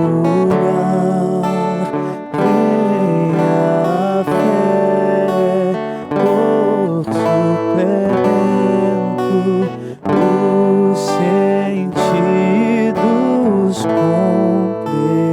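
Slow worship music: an acoustic guitar strumming chords, with a voice singing sustained notes over it.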